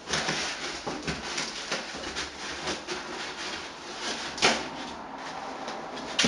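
Packing material rustling and crinkling as it is handled and pulled out of a cardboard box, with a sharp knock about four and a half seconds in and another near the end.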